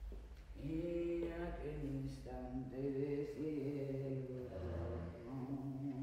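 Slow chant-like singing with long held notes, starting about half a second in.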